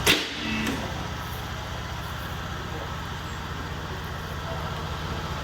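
A steady low mechanical hum, with one sharp knock just at the start.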